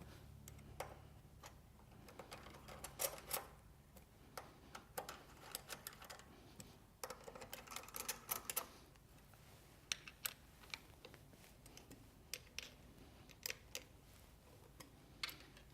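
Faint, irregular metallic clicks and ticks of a 5mm Allen key working in the cap screw heads as the cutter block's top plate is tightened, some in quick clusters.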